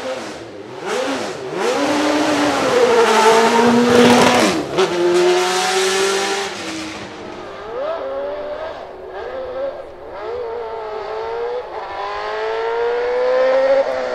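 Judd 3.5-litre naturally aspirated V8 of a Leyton House March-Judd Formula One car revving in sharp throttle blips at the start line. Near the end it climbs steadily in pitch as the car pulls away.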